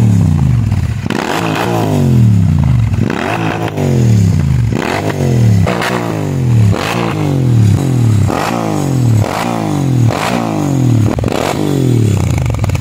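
Royal Enfield Interceptor 650's parallel-twin engine revved in repeated throttle blips, about one a second. Each blip rises sharply and then falls back in pitch, sounding through its twin aftermarket exhausts.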